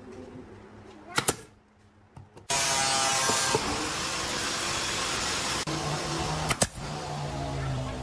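Pneumatic brad nailer firing into pine: a pair of sharp shots about a second in and another pair about two-thirds of the way through. A loud, steady rushing noise starts suddenly about two and a half seconds in and runs on under the later shots.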